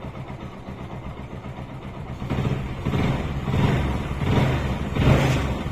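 Hero Glamour 125's single-cylinder four-stroke engine idles, then is revved repeatedly with short throttle blips from about two seconds in. It runs smooth as butter after the timing chain tensioner repair, with the earlier timing chain rattle gone.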